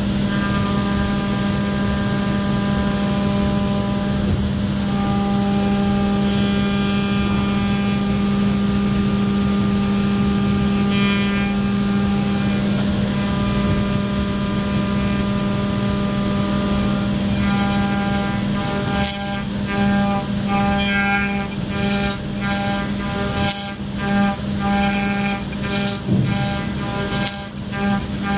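5-axis CNC milling machine running with a steady hum of several fixed tones. About two-thirds in, an uneven choppy cutting noise joins it.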